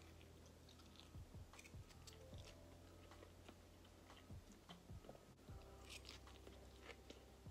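Faint close-up chewing of a mouthful of salad with pasta and chicken, with scattered soft clicks and crackles over a low steady hum.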